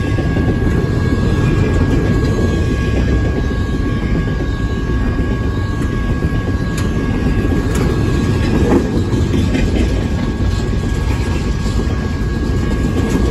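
Double-stack container cars of a freight train rolling past close by: a loud, steady rumble of steel wheels on rail, with a thin steady tone above it and a few faint clicks in the middle.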